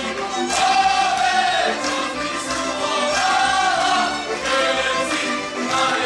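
Slovak folk music: a group of voices singing long held notes, with faint rhythmic beats underneath.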